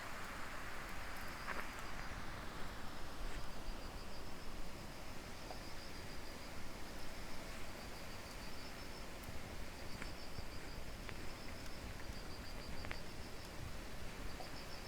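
Crickets chirping in short trills repeated every second or so, over a low steady rush of typhoon wind.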